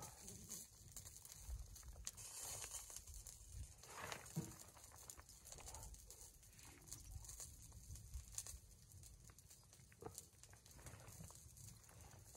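Near silence: faint outdoor ambience with a low rumble and a few soft clicks and taps, one a little louder about four seconds in.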